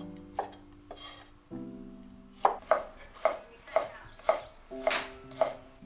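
Chinese cleaver chopping bamboo shoots on a wooden chopping board: a few scattered knocks at first, then about seven chops at an even pace, roughly two a second, in the second half.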